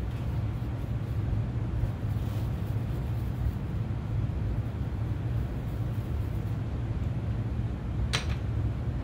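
Steady low mechanical hum, with a single short, sharp tap about eight seconds in.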